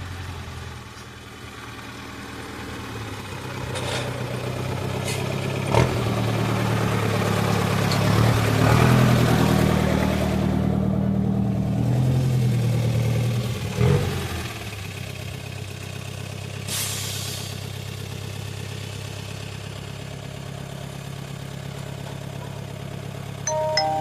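A motor vehicle's engine running, growing louder as it revs or pulls closer over several seconds, then dropping back to a steady low run about halfway through. Two sharp knocks stand out, one about six seconds in and one as the engine falls back, and a short pitched tone sounds near the end.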